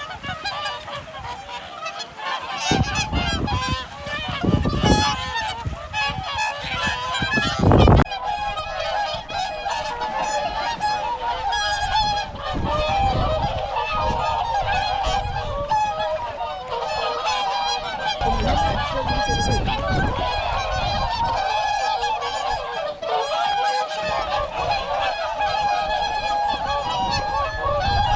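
A large flock of swans calling, many honking calls overlapping without a break.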